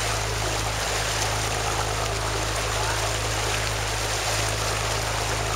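A boat's engine running steadily with water rushing past the hull, heard from on board: a constant low hum under an even wash of noise.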